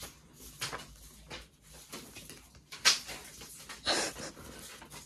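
Polymer banknotes rustling and crinkling as a handful of £20 notes is shuffled and fanned in the hand, in short bursts, the loudest about three seconds in.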